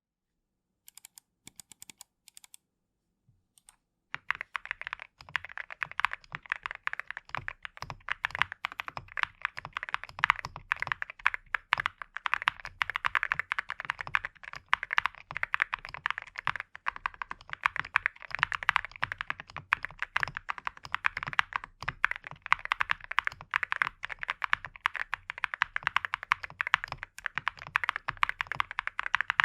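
Typing on a Cerakey Nada 65 Panda mechanical keyboard with ceramic keycaps, a gasket-mounted FR4 plate, and PET film, IXPE switch pad and Poron plate foam inside. A few scattered key presses come first, then continuous fast typing from about four seconds in.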